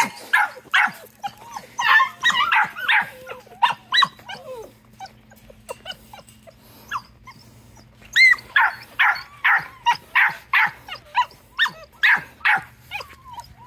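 Young puppies yipping and barking in quick runs of short, high calls, about two a second, with a lull in the middle.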